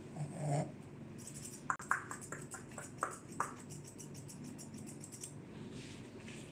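Steel grooming shears snipping through a Shih Tzu's head fur in a fast run of crisp snips, several a second, starting about a second in and stopping about five seconds in: a finishing trim taking off stray hairs.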